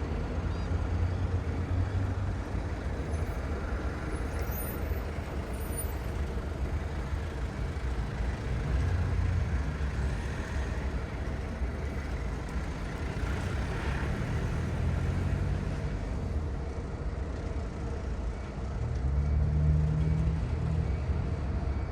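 Steady low rumble of distant engines, with a swell near the end.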